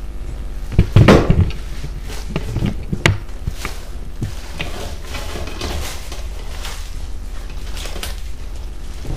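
Cling film rustling and crinkling as a log of vegan salami is wrapped and pressed tight on a plastic cutting board, with irregular handling knocks, the loudest about a second in and another near three seconds. A low steady hum runs underneath.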